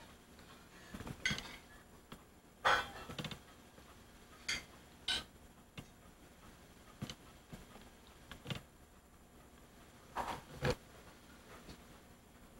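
Light knocks and clicks at irregular intervals in a small room, a dozen or so, loudest about three seconds in and again near the end.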